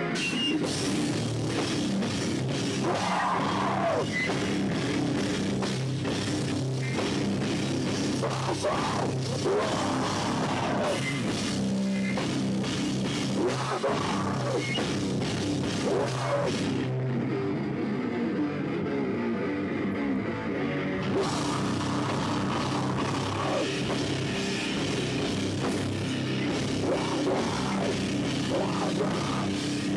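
Loud rock band playing live, with electric guitar and drum kit. The high end of the sound drops away for about four seconds a little past halfway, then the full band comes back in.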